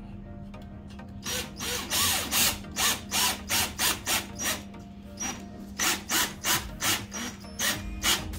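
Cordless drill driving a screw through a metal kayak wall hanger into a wall stud. The drill runs in short bursts, about three a second, starting about a second in.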